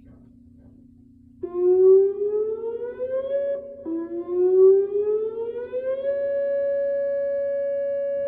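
Whelen WPS 2909 electronic outdoor warning siren starting its steady alert signal. About a second and a half in, the tone sweeps up in pitch, cuts out briefly, sweeps up again, then holds one steady tone.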